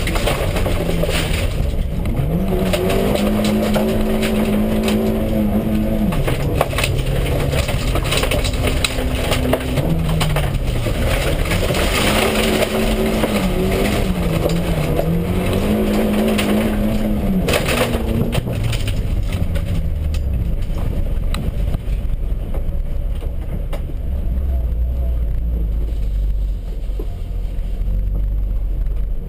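Toyota Yaris rallycross car's engine heard from inside the cabin, revving up and dropping back again and again as it is driven hard on dirt, with gravel and stones clattering against the car. About eighteen seconds in the revs fall away and the clatter thins as the car slows to a steady low speed.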